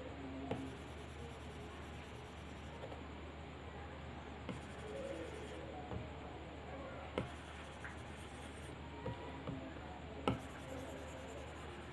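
Stylus tip stroking and tapping on an iPad Pro's glass screen, a faint scratchy rubbing with a few sharp taps, the loudest near the end. A steady low hum runs underneath.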